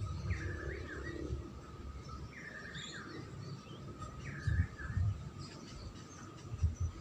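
A songbird repeating the same short call three times, about two seconds apart, over a faint steady tone, with a few low thumps in the second half.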